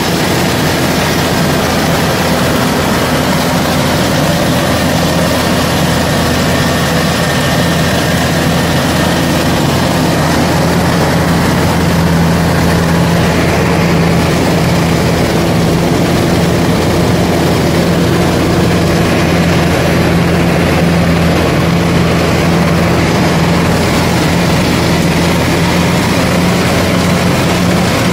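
Kubota DC-105X rice combine harvester running under load, its diesel engine and threshing machinery giving a loud, steady drone. A low hum in the drone grows stronger about halfway through.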